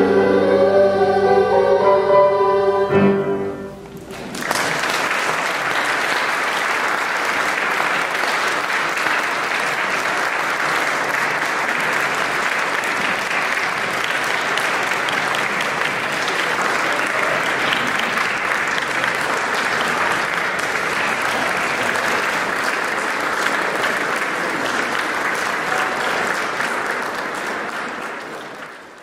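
A girls' choir with piano holds a final chord that ends about three and a half seconds in. After a brief pause, audience applause starts and runs steadily, then fades out near the end.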